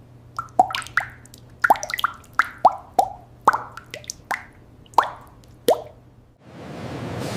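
Liquid dripping: about a dozen drops plop one after another, each a short sound that falls in pitch, over a faint low hum. About six and a half seconds in, a steady hiss takes over.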